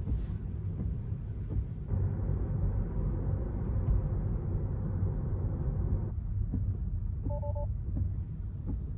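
Road noise inside a Tesla Model 3's cabin: a steady low rumble, with a hiss of tyres on the wet road from about two seconds in to about six seconds. A short two-note beep sounds a little after seven seconds.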